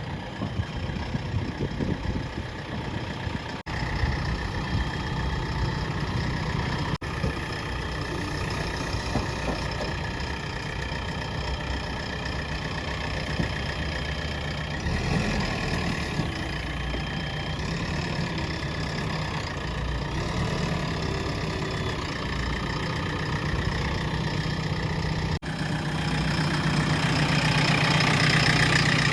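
Diesel engines of a backhoe loader and farm tractors running steadily at work, with three brief dropouts and a rise in loudness near the end.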